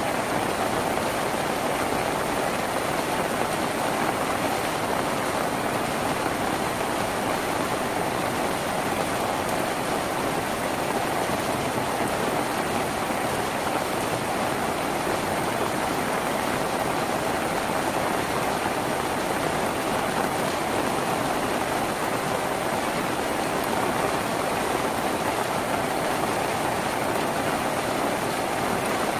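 Steady, heavy rain falling on a tin roof, an even hiss of drops.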